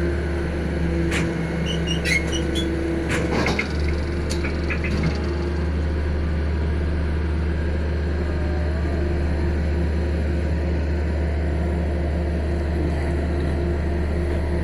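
Engine of a hydraulic pile-driving rig running steadily with a deep drone. A few sharp knocks and clatters come in the first four seconds.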